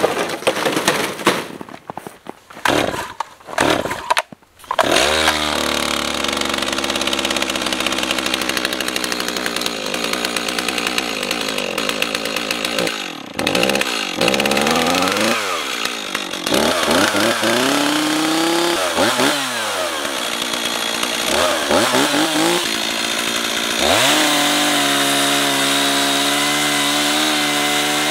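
Two-stroke gas chainsaw being pull-started: several short sputters, then it catches about five seconds in and keeps running. It is revved up and down several times, and near the end runs steadily at high speed, cutting branches.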